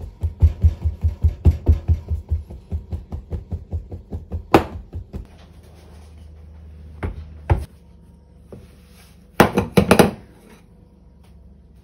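Ceramic bowl of batter knocked repeatedly on a counter, about four knocks a second for the first five seconds, to knock the air out of the batter. Near the end, a short cluster of louder knocks as the bowl is turned over onto a wooden cutting board.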